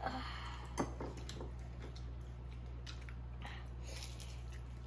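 People chewing and biting into fried chicken, soft mouth and eating noises with scattered small clicks and one sharper click about a second in, over a steady low hum.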